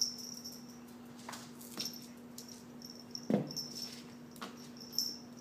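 Kitten's paws tapping and skidding on a hardwood floor as it pounces on a hair elastic, a scattering of light taps and scrapes. A louder short sound comes about three seconds in, over a steady low hum.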